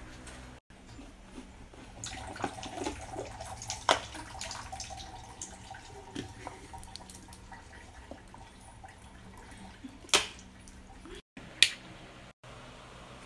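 Water poured from a plastic bottle into a small plastic cup, with scattered small clicks and knocks. Near the end a sharp plastic click as a high-chair harness buckle is fastened.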